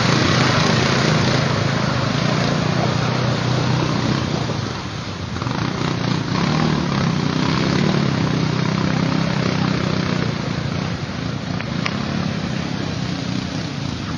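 Quad bike (ATV) engines running under load as the quads churn through deep muddy water, with splashing spray over the engine note. The sound eases briefly about five seconds in, then picks up again.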